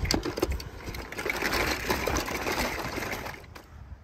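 Die-cast metal toy cars clattering against each other and a plastic tub as one is dropped in and the pile shifts: a quick run of clinks and rattles that dies away about three and a half seconds in.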